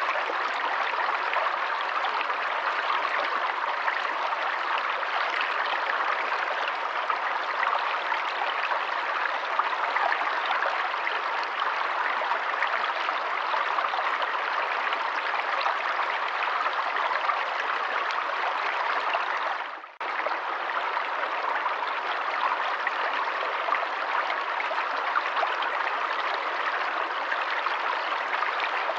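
Forest stream running, a steady rush of water. It dips out for a moment and comes straight back about two-thirds of the way through.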